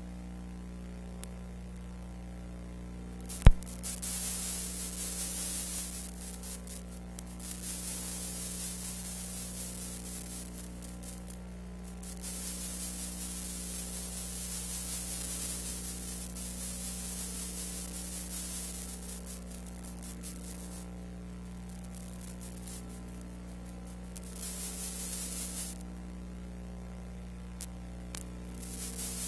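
Steady electrical hum under hiss that swells and fades in stretches, with one sharp click about three and a half seconds in.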